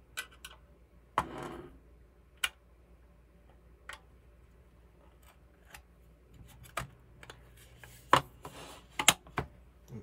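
Light clicks and taps of a power bar's sheet-metal case being handled and fitted back together, with a brief scrape about a second in and a few sharper clicks near the end.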